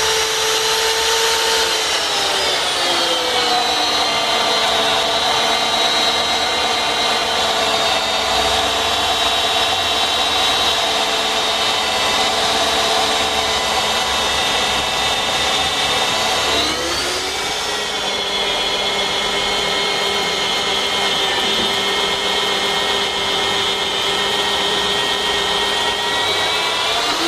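Alfra V32 magnetic drill's 900-watt motor running with a steady whine. About two seconds in its pitch drops and settles lower as it comes under load. It dips briefly about two-thirds of the way through and rises again at the very end.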